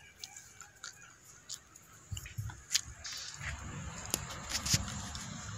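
Faint scattered clicks and rustling of a phone being handled and moved around, with a low rumble setting in about two seconds in. The engine is not running.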